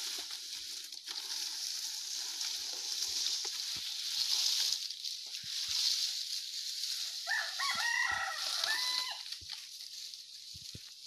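A rooster crows once, a call of about two seconds with stepped pitches, about two-thirds of the way in, over a steady high hiss.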